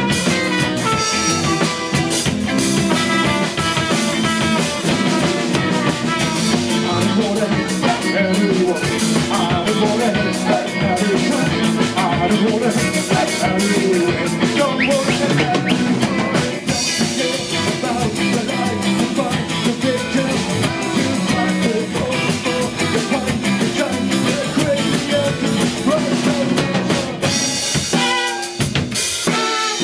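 Band playing an instrumental stretch of a song, drum kit to the fore, with the bass and drums dropping out briefly near the end.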